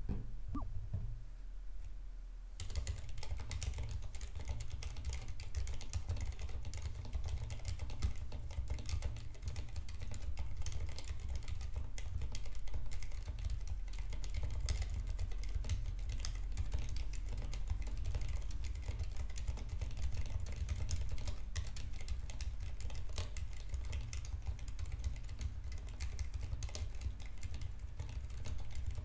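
Typing on a Filco Majestouch Minila-R Convertible 60% keyboard with Cherry MX Silent Red linear switches and doubleshot PBT keycaps: a continuous, muted run of keystrokes that starts a couple of seconds in.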